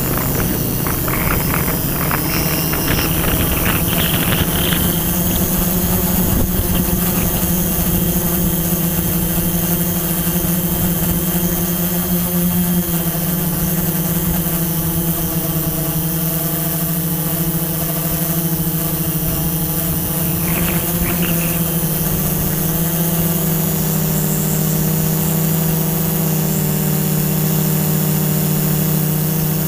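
Multirotor drone's electric motors and propellers humming steadily, heard from the camera on board; the pitch drops about halfway through and rises again a few seconds later as the motors change speed.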